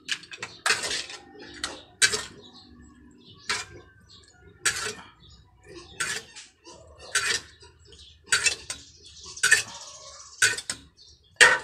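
A metal ladle clanking and scraping against a large metal wok as cooked mussels in their shells are scooped out, the shells clattering together; about one sharp clank a second.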